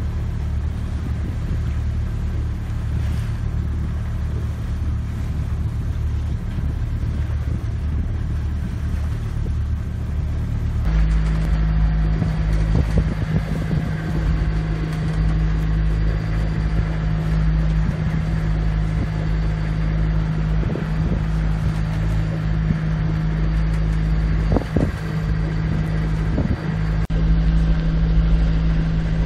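Sailing yacht's inboard engine running at steady revs, a constant low hum. About eleven seconds in it turns louder, with a steadier, higher drone on top.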